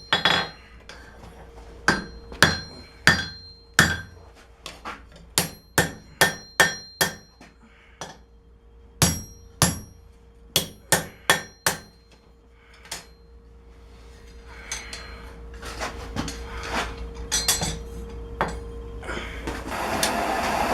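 Hand hammer striking hot steel on an anvil in separate, unevenly spaced blows with a bright ring, bending a knife blade forged from a wrench into a karambit curve. The blows stop about twelve seconds in, a few softer knocks follow, and a steady rushing noise rises near the end.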